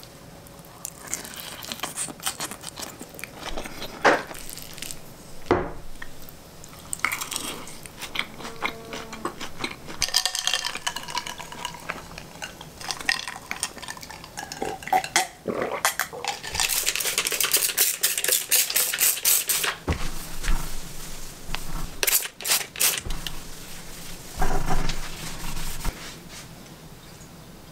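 Wooden-headed spoon and fork clinking and scraping against a ceramic salad bowl while eating, in a long run of irregular clicks and scrapes that grows denser in the middle and thins out near the end.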